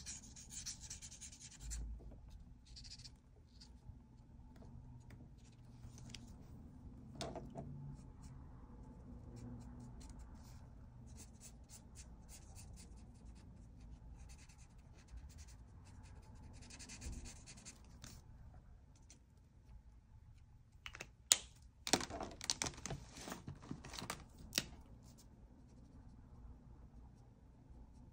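Marker nib scratching and rubbing on paper in short, repeated colouring strokes, faint, with a cluster of quicker, louder scratches about three-quarters of the way through.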